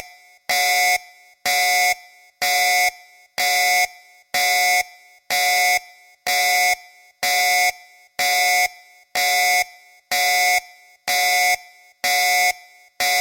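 Battle alarm sounding: a harsh buzzing tone in blasts of about half a second, repeated steadily about once a second, each blast cutting off into a short fading tail.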